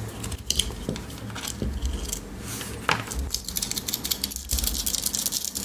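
Handling noise of a Swiss Army knife: a run of light metal clicks and jingles from its noisy key ring, with rustling as the paracord lanyard is unravelled, busiest in the second half.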